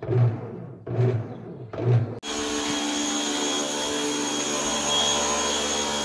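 Top-loading Electrossul 15 kg washing machine agitating empty: its motor hums in a pulse with each stroke of the agitator, a little more often than once a second. About two seconds in, this cuts off and a steady, even motor drone with several steady tones takes over.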